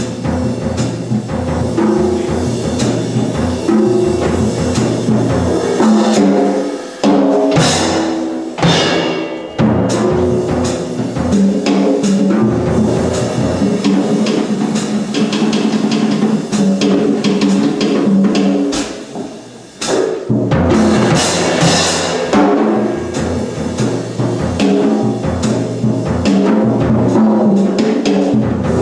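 Live solo percussion: drums struck in a busy, continuous rhythm, with tuned drums sounding shifting pitched notes like timpani, and two brief bright swells that reach high up, about eight and twenty-one seconds in.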